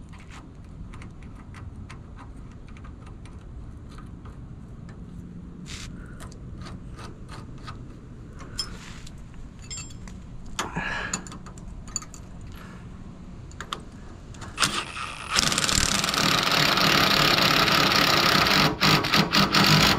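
Light metallic clicks and taps as a washer and nylon lock nut are fitted onto a trailer leaf-spring hanger bolt. About fifteen seconds in, a power tool starts and runs loud and steady for about five seconds, driving the nut down.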